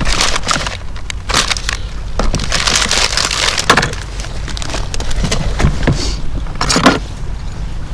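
Wind buffeting the microphone as a steady low rumble, with irregular crackling and rustling on top, loudest in the middle and again near the end.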